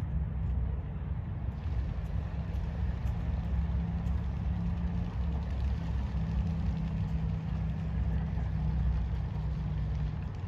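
Pontoon boat's outboard motor running at low speed, a steady low hum.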